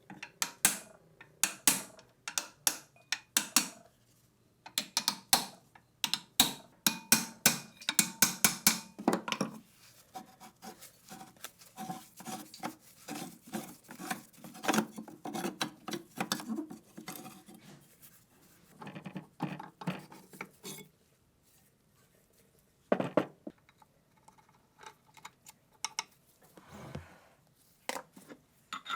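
Hand tools working on old machine-gun parts. A quick run of sharp metal taps and clicks lasts about nine seconds. Scraping and rubbing follow, then a few more taps about twenty seconds in and a single knock a little later.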